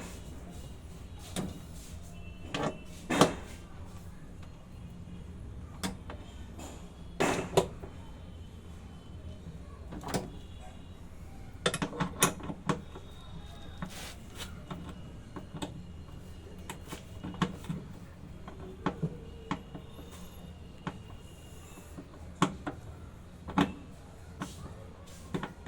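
Irregular metallic knocks, clinks and scrapes of hand tools and metal parts being handled during a top-load washing machine repair, some ringing briefly, over a steady low hum.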